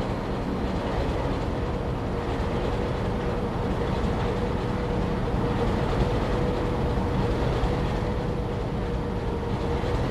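Railway engine running steadily: a continuous rumble with one steady tone held above it.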